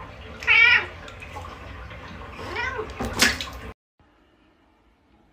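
A cat meowing three times, the calls wavering in pitch; the sound cuts off abruptly about two-thirds of the way through.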